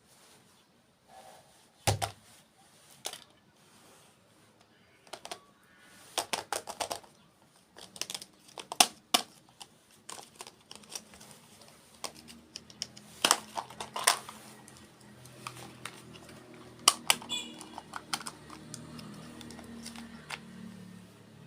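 Close-miked eating sounds: irregular crisp crunches and clicks of a dessert being bitten and chewed. A low steady hum joins about halfway through.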